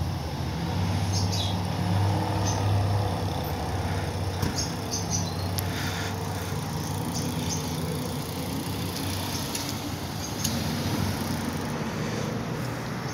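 A vehicle engine idling with a steady low hum, with scattered clicks and rustles from a handheld phone being carried.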